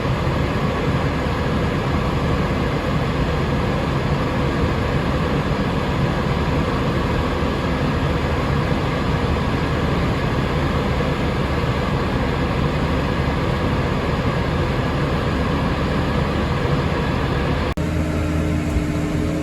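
Tractor engine running steadily at a constant note. Near the end it changes abruptly to a different, steadier engine sound.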